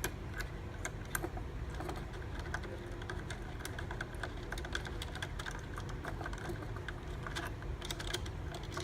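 Many light, irregular clicks and taps of small parts being handled: screws being undone and cable connectors and a pressure tube being pulled off an old pressure switch. A steady low hum runs underneath.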